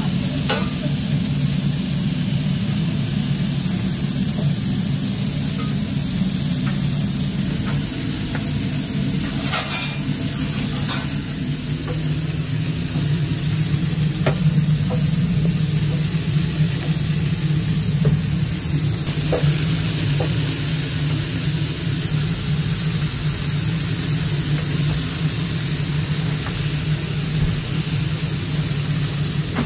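Burger patties sizzling on a grill, a steady hiss over a constant low machine hum, with a few scattered sharp clicks.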